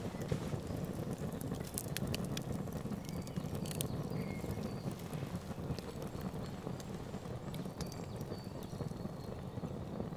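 Wood campfire burning with a steady crackle and scattered sharp pops and snaps.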